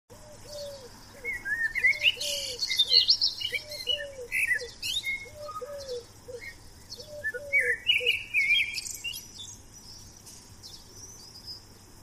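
Mixed birdsong: small birds chirping and tweeting, over a low call repeated in short groups of two or three notes, about five groups in all. The calling thins out and fades over the last few seconds.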